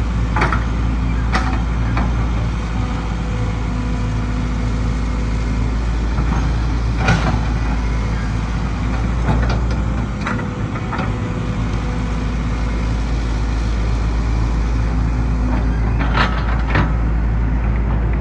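Heavy diesel engine of a Hyundai 220LC excavator running steadily under load, with several short sharp clanks scattered through.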